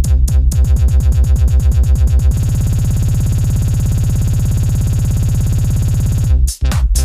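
Electronic dance music: a pulsing beat quickens into a fast roll, then gives way to a held synthesizer chord for several seconds before the beat drops back in near the end.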